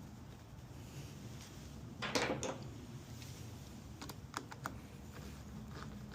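Tool and metal-part clicks during a car battery swap: a short scraping clatter about two seconds in, then a few sharp clicks.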